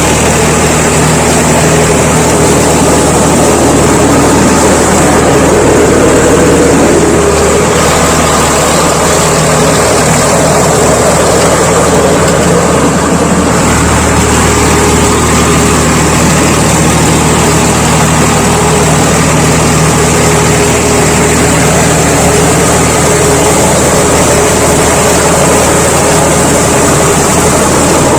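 Swaraj 855 FE tractor's diesel engine running steadily while working, its low drone shifting slightly about halfway through.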